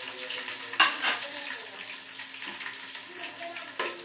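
Chopped onion, capsicum and chillies sizzling in hot oil in an aluminium pan as a spoon stirs them. A sharp clink sounds about a second in, and a smaller one near the end.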